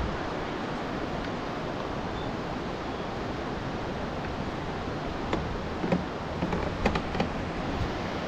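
Steady rush of the Kootenai River's falls and rapids, with a few short knocks and clicks about five to seven seconds in.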